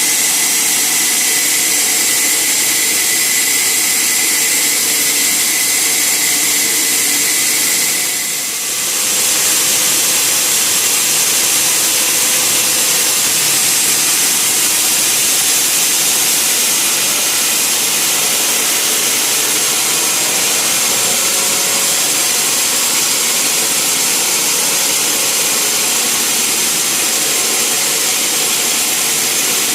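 Sawmill saw running and cutting timber, a loud, steady, hissing whine. A steady high tone stops about eight seconds in, where the sound briefly drops, then the cutting noise carries on.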